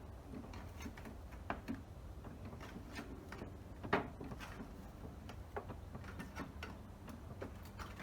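Light, irregular taps and clicks from working the sheet-metal cover of a beehive lid, with one sharper knock about four seconds in.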